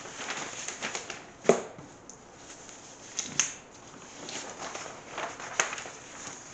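Large paper plan sheets being leafed through and laid down on a wooden table: rustling, with a few sharper flaps of paper.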